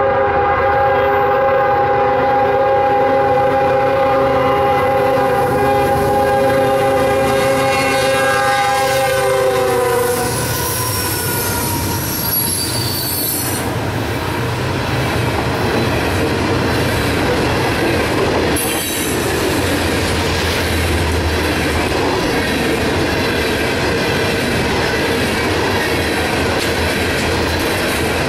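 Loaded BNSF coal train: the lead GE locomotive's horn sounds one long blast that drops in pitch and stops about ten seconds in as the engines pass. Then loaded coal hopper cars roll by with steady wheel clatter on the rails, with some high wheel squeal shortly after the horn ends.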